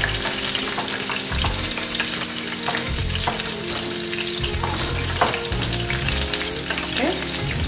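Beer-battered fish frying in hot oil: a steady sizzle with scattered crackling pops.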